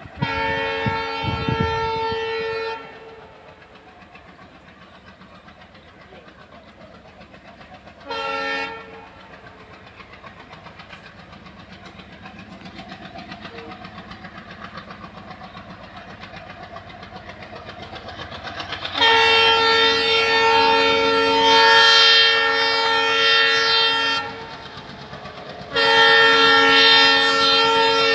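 ALCo WDM3D diesel locomotive sounding its horn four times: about three seconds at the start, a short toot around eight seconds in, a long five-second blast past the middle and another near the end. Between the blasts comes the quieter steady chugging of the diesel engine and the clicking of the train's wheels on the rail.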